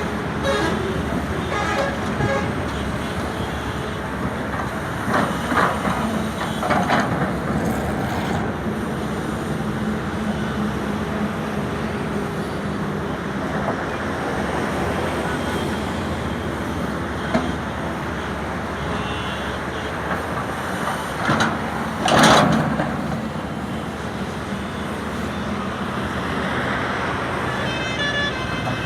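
Sany SY210 excavator's diesel engine running steadily under load while it digs and loads a dump truck, with a brief loud rush of noise partway through and a vehicle horn sounding near the end.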